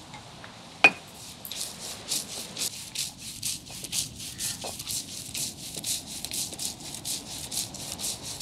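Grated coconut and spices being ground on a traditional grinding stone: quick rhythmic stone-on-stone rubbing strokes, about four a second, as the paste is worked fine. A single sharp knock comes just before the grinding starts.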